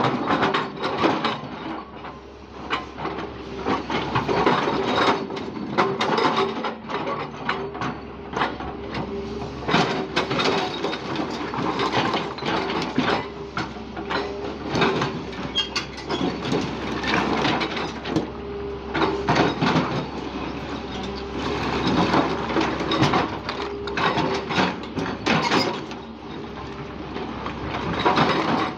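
JCB backhoe loader digging: its engine runs steadily under load amid frequent clanks, knocks and scraping from the bucket and arm working soil and stones.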